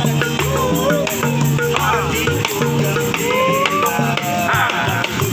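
Buskers' music: a singing voice over held bass notes, with a shaker-type rattle and drum keeping the beat.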